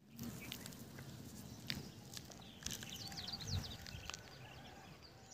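Faint rural outdoor ambience: a small bird chirping a quick run of high notes about halfway through, with scattered light clicks and rustles.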